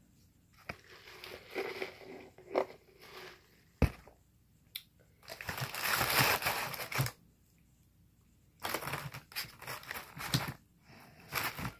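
Close-up eating sounds: crunching and crinkling from crispy fried fast food and its paper wrapping, in irregular bursts, the longest a couple of seconds long about halfway through. A single sharp click is heard about four seconds in.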